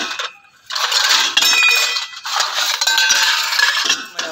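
Stainless steel dishes clattering and scraping against each other as they are handled and washed, with short metallic rings and clinks. It starts after a brief pause about half a second in.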